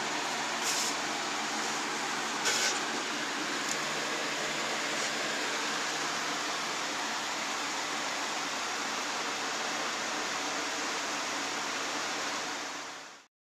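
A steady fan-like whir with a faint low hum under it. A few light clicks in the first four seconds. It fades out near the end.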